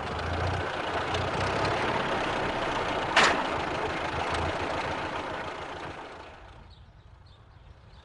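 Cartoon sound effect of a car engine running, a low rumble under a rough hiss, with one sharp pop about three seconds in; the engine sound fades away about six seconds in.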